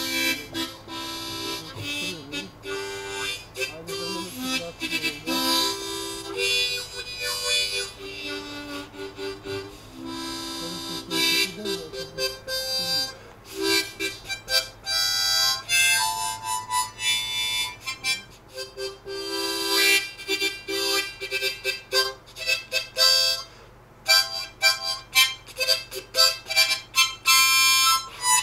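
Background music: an instrumental tune of held melodic notes that change every fraction of a second.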